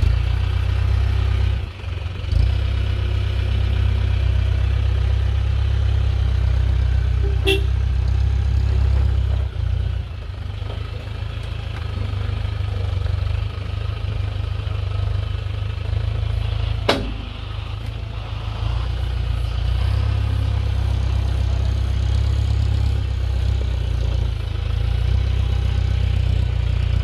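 Troller 4x4 crawling slowly through a deep eroded rut with its engine running at low revs, under a heavy steady low rumble. There are two sharp knocks, about 7 s and 17 s in.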